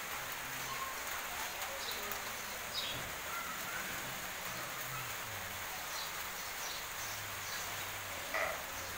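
Steady outdoor hiss with a few short bird calls, one about three seconds in and one near the end.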